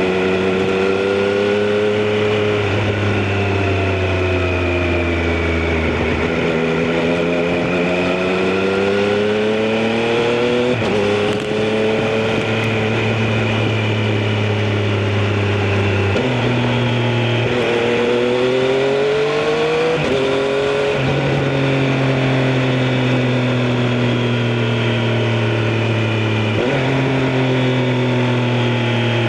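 Triumph Street Triple RS inline three-cylinder engine and exhaust under way, its pitch rising and falling with the throttle. Several gear changes show as sudden jumps in pitch.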